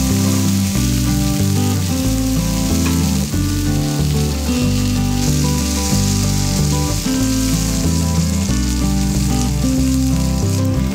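Wieners and green beans sizzling in olive oil in a frying pan, a steady hiss, under louder background music with a stepping bass line.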